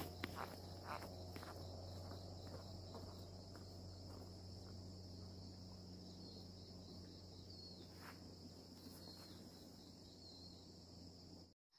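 Steady high-pitched drone of insects (crickets) in grassy vegetation over a low steady hum, with a few soft footsteps on grass fading in the first second or so. It cuts off suddenly near the end.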